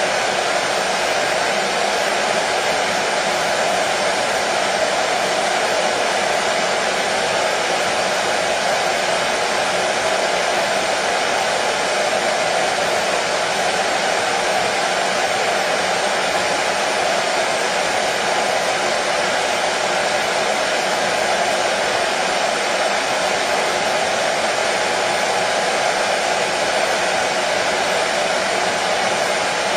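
Hair dryer running steadily, an even blowing whoosh with a faint motor hum, used as white noise to soothe a colicky baby to sleep.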